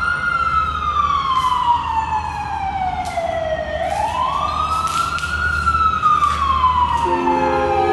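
Emergency vehicle siren in a slow wail, rising and falling in pitch twice, over a low rumble. Music begins softly near the end.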